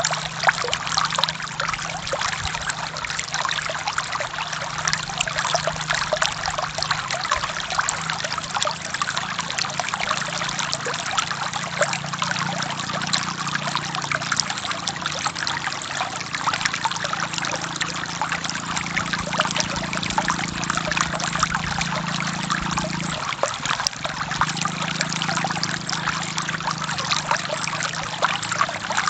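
Forest river flowing, a steady splashing babble of water with a lower burble underneath that briefly drops out about three-quarters of the way through.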